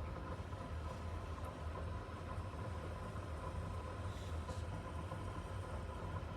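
A steady low mechanical hum with faint steady higher tones over a light hiss.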